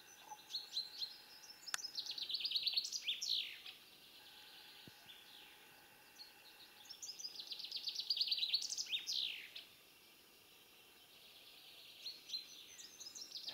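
A songbird singing in repeated phrases of about three seconds each. Each phrase is a fast run of high notes ending in a few quick falling notes, with pauses of a few seconds between; the third phrase begins near the end.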